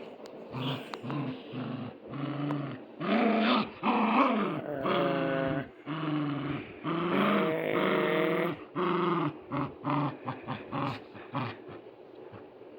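Puppy growling in short repeated bursts as it play-fights a plush toy, with two longer, higher-pitched growls in the middle.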